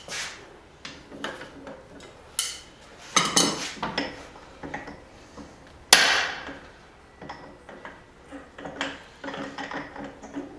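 Hand hammer striking steel at the anvil: a handful of separate, irregular blows with ringing, the loudest about six seconds in. It is the work of driving a punch through a hot hammer head to open its eye.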